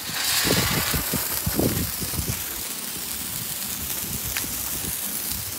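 Handheld fireworks spraying sparks with a steady hiss, loudest in the first second, with a few low rumbles in the first two seconds.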